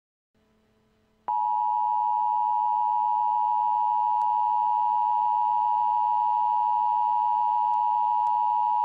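Emergency Alert System attention signal: a steady two-tone alert tone, starting about a second in and held unchanged, which marks the start of an emergency alert broadcast.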